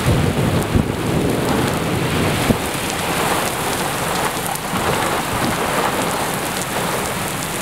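Heavy rain pouring steadily, with a low rumble of thunder during the first couple of seconds. Two sharp taps stand out, about a second in and about two and a half seconds in.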